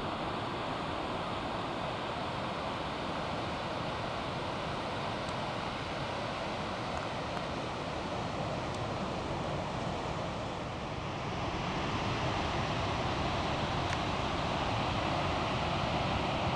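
Sea surf breaking on a beach, heard as a steady wash of noise, with wind buffeting the microphone. It grows a little louder from about twelve seconds in.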